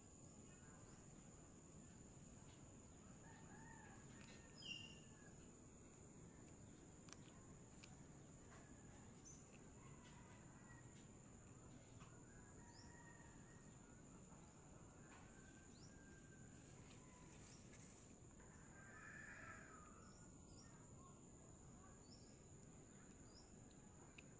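Quiet rural ambience: a steady high-pitched insect drone with faint, scattered bird calls, a short cluster of calls about three-quarters of the way through.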